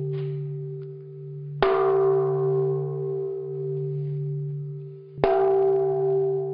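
Large Buddhist temple bell struck twice, about three and a half seconds apart. Each stroke rings on in a deep, slowly fading hum that carries over into the next.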